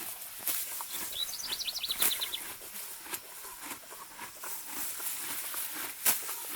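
Morgan horse grazing: sharp rips of grass torn off with the teeth and crunchy chewing, a few strong tears standing out. A bird gives a short, rapid high trill about a second in.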